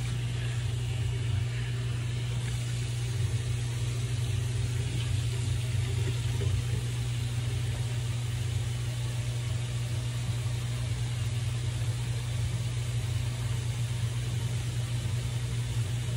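Water running steadily from a bathroom tap while a face is rinsed, with a steady low hum underneath.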